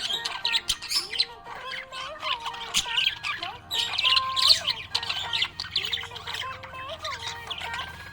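Budgerigar chirping and warbling in quick, busy runs over background music with a simple melody.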